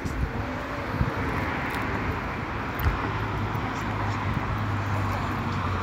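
Street traffic ambience: an even wash of vehicle noise, joined about halfway through by a low steady hum, with a couple of faint knocks.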